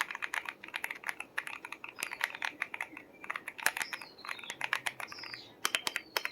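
Star80 Ultra mechanical keyboard with Akko Chocolate keycaps being typed on, in fast continuous runs of key clicks.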